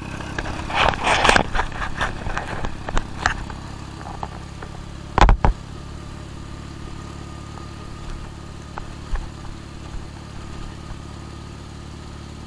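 Motorcycle engine running steadily at low speed on a rough dirt road, with clattering and knocks from the bike jolting over ruts in the first few seconds. A heavy double bump about five seconds in is the loudest sound, and then the engine drone carries on steadily.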